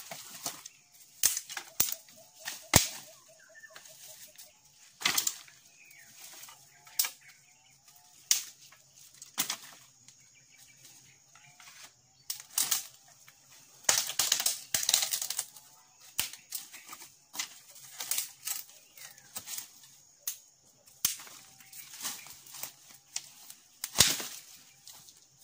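Dry branches and twigs snapping and cracking as they are broken and pulled out of a brush pile, with rustling of dry leaves between the cracks. The cracks come at irregular intervals, the loudest about three seconds in and one near the end as a branch is stepped on.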